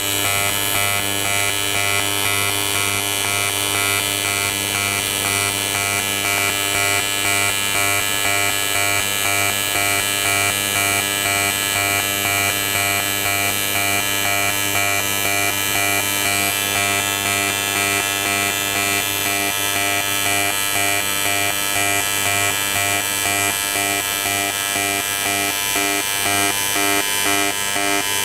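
AC TIG welding arc on 6061 aluminum, buzzing steadily at the 100 Hz AC frequency. The buzz swells and drops with the pulse, two pulses a second, as the Everlast MTS 221 SI switches between 200 amps peak and a 40% background current.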